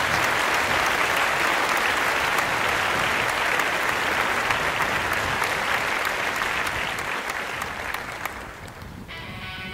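Crowd applauding steadily, fading out near the end as guitar music comes in.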